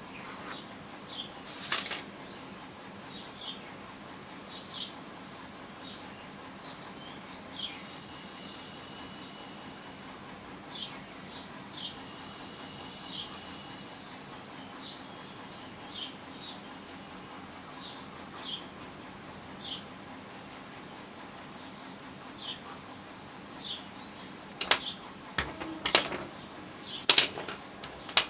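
A small bird chirping repeatedly, short high chirps about once a second, over a faint steady high whine. A few sharp taps stand out near the end.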